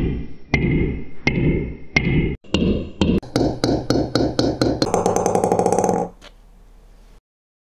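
Ping pong ball bouncing on a table, each bounce ringing with a hollow tone. The bounces come faster and faster until they run together into a rapid rattle and stop about six seconds in as the ball comes to rest.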